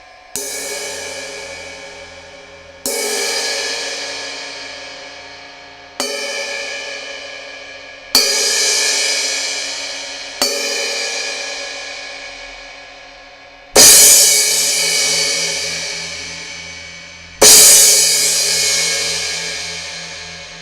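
Arborea Ghost 16-inch crash cymbal struck seven times, each hit left to ring and fade away before the next. The last two hits, about 14 and 17 seconds in, are the loudest.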